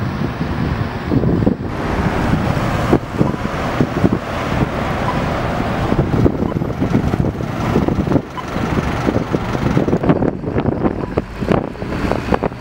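Road traffic: vehicles driving past on a busy road, with wind buffeting the microphone.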